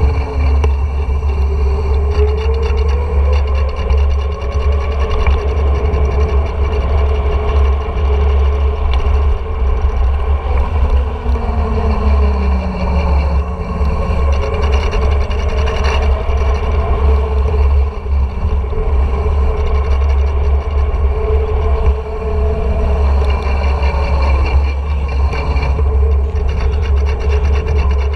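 Wind buffeting a GoPro's microphone and the tyre noise of a mountain bike rolling fast down an asphalt road, a loud, steady rush with a deep rumble. A faint whine slides slowly up and down in pitch over it.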